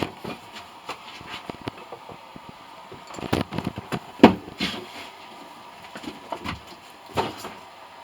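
A series of irregular knocks and clatters, as of hard objects being handled and set down, with the loudest knock about four seconds in.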